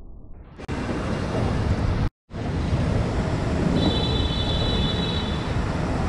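Steady outdoor rushing noise that swells in about half a second in and cuts out for a moment about two seconds in, with a faint high steady tone in the middle for a second or two.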